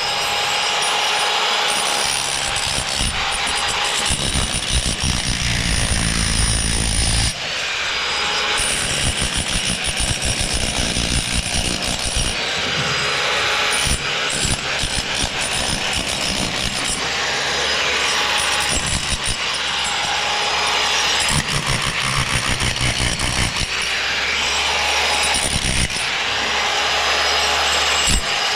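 Power tools and machinery running continuously, with a dense rapid rattling and a steady whine that now and then rises and falls in pitch.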